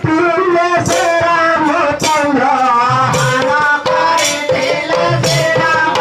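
Loud folk-style devotional music: a sung melody over pitched instruments, with jingling percussion striking about once a second.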